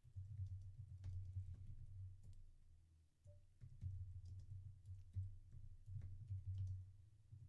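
Typing on a computer keyboard: a run of key clicks over a low rumble that comes and goes with the keystrokes, with a short pause about three seconds in.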